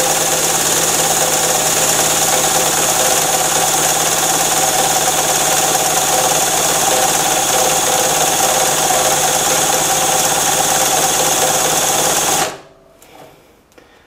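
A drill spinning a small Harbor Freight two-stroke generator engine over through an extension on its flywheel nut. It makes a steady whir that cuts off suddenly near the end. The engine does not catch, because it is flooded with gasoline.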